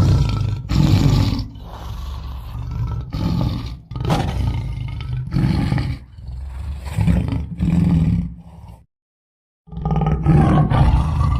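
Tiger roaring and growling, a run of deep, loud calls about a second apart. The calls break off into dead silence for about a second near the end, then start again.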